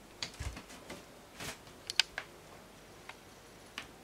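Scattered taps, scrapes and rustles of a cat pawing and pouncing among shoes on a concrete entryway floor while chasing a cockroach. There is a soft thump about half a second in and a sharp click about two seconds in.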